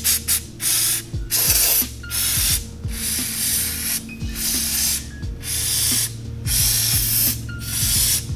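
Aerosol brake cleaner hissing from the can as it is sprayed onto a bare aluminium engine block. It comes as a series of separate bursts: a few quick spurts at first, then longer sprays of up to about a second each.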